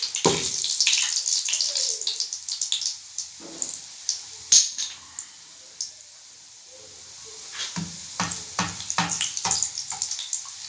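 Stuffed dough rolls shallow-frying in hot oil in a pan, a crackling sizzle with one sharp, loud pop about four and a half seconds in. The crackling eases for a couple of seconds, then picks up again near the end with a run of soft knocks as a slotted spatula moves the rolls.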